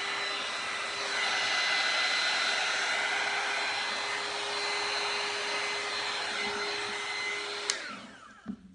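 Electric heat gun running: a steady rush of blown air with a high whine and a low hum. A click near the end as it is switched off, then the motor winds down.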